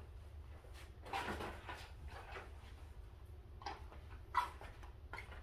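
Handling noises as a wetsuit and clothes are hung up to dry: light rustling of fabric with a few soft clicks and knocks, over a low steady hum.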